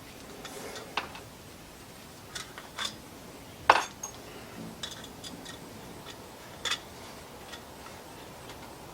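Metal parts and hand tools clicking and tapping as a gas barbecue is worked on: about eight sharp, irregular clicks, the loudest just under four seconds in.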